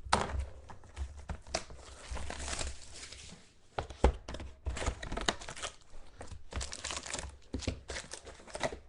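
Trading-card packaging being torn open and crinkled by hand, a run of irregular crackles and clicks as the wrapper is ripped and the cards handled.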